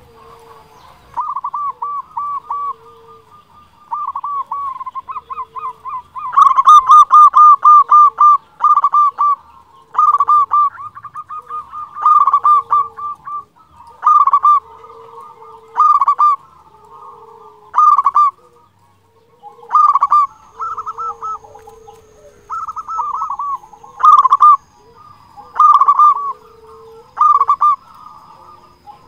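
Zebra dove (perkutut) cooing: repeated phrases of rapid staccato coos, one phrase every two seconds or so, with softer, lower notes between the phrases.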